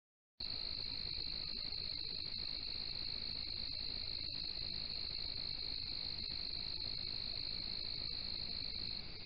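Night insect chorus recorded by a trail camera's microphone: a steady, high-pitched trill that cuts in abruptly about half a second in.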